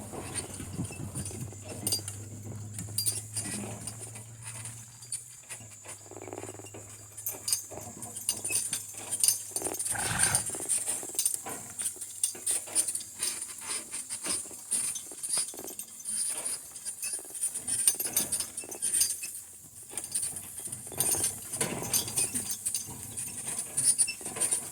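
A pair of harnessed donkeys pulling a cart at a walk: irregular clicks, taps and clinks from the harness, cart and hooves, over a steady high hiss.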